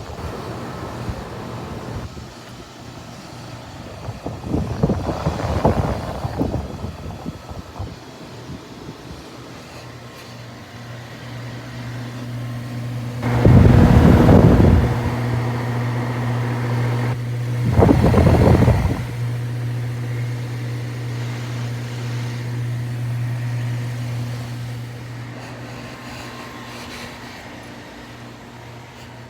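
Air conditioner running with a steady low hum, overlaid three times by louder swells of noise, near the start, about halfway through and shortly after.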